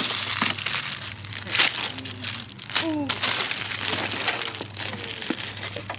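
Plastic packaging crinkling as it is handled, a rustling crackle full of small clicks.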